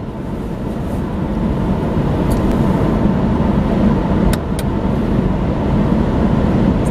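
Steady road and engine noise inside a moving car's cabin, growing a little louder over the first two seconds and then holding steady, with a few faint ticks.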